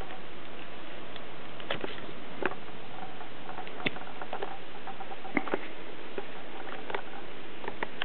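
Springer spaniel and sprocker spaniel eating raw meal: irregular wet smacks and clicks of chewing and licking, about a dozen, spread unevenly.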